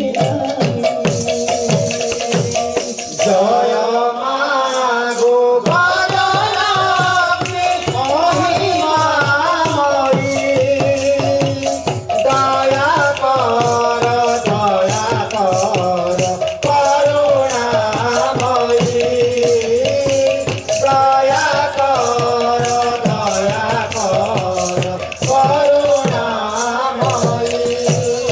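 Devotional kirtan music: a sliding, wavering melody over quick hand strokes on a two-headed barrel drum, with rattling percussion.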